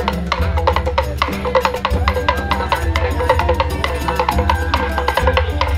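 Music with a fast, busy drum beat over a pulsing bass line.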